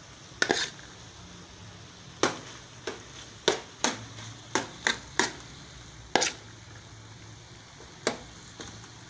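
Metal spoon clinking and scraping against a metal cooking pot while stirring rice into chicken and vegetables: about a dozen sharp, irregular knocks.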